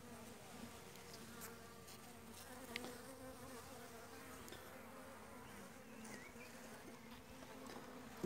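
Honeybees humming around an opened hive, a faint steady drone, with a few light clicks.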